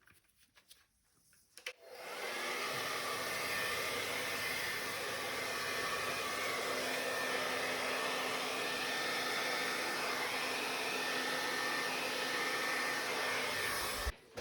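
Hair dryer switched on about two seconds in and running steadily, a smooth rush of air with a faint steady whine, used to blow acrylic paint across a canvas; it cuts off just before the end.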